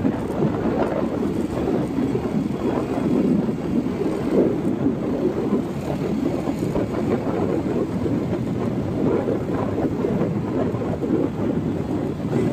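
Steady rumbling road and wind noise from a moving vehicle, with no single event standing out.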